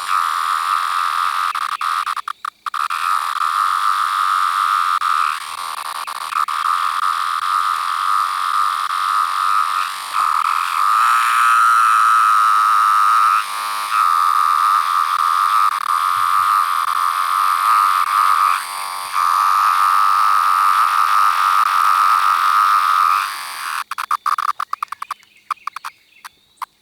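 A 17-year periodical cicada giving its whining call: a loud, steady buzz at one pitch, broken by short dips every few seconds. It stops near the end, followed by scattered crackling clicks.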